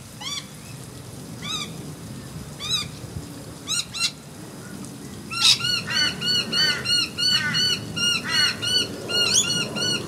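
Noisy miners calling: single sharp chirps at first, then from about five seconds in a fast run of repeated ringing notes, about three a second. This is their alarm call.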